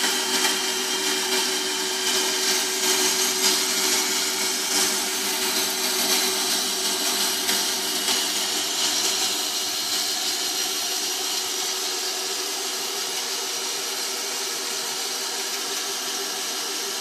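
Proxxon MBS 240E benchtop band saw running, its blade cutting a copper rod under a water drip. The sound is steady, with a rough flutter underneath that drops away about twelve seconds in, leaving a smoother, even run.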